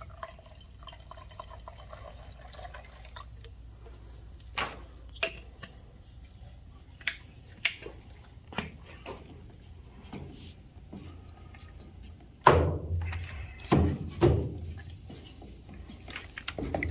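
Scattered light clicks and knocks, with three louder thumps a few seconds before the end.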